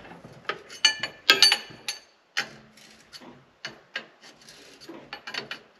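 Metal parts and hand tools clinking, knocking and scraping against each other in short, irregular strikes, a few of them ringing briefly, the loudest cluster a little over a second in.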